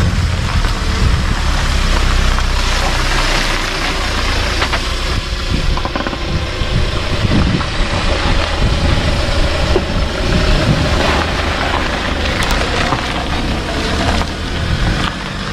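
Hyundai Porter II double-cab pickup's engine running at low speed as the truck pulls away, with its tyres crunching over loose gravel. The engine hum is strongest in the first few seconds; after that the gravel crunching and crackling takes over.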